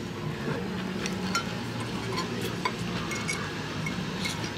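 Metal fork and knife clinking and scraping against a ceramic plate while cutting and pushing filled pasta through cream sauce: a few light, separate clinks over steady low background noise.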